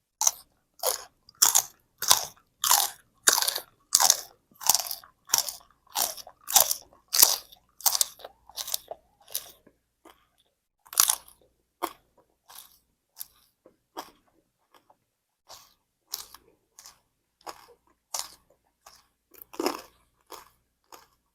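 A person chewing something crunchy, one crunchy bite about every 0.6 s for the first nine seconds, then fainter, irregular crunches with pauses.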